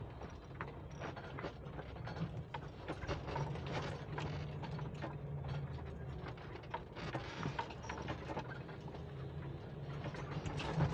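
A 2018 Coachmen Leprechaun motorhome creeping over a rutted dirt road, heard from the driver's seat: the engine runs as a steady low drone while the coach's body and loose contents rattle and click continuously as it rocks through the ruts.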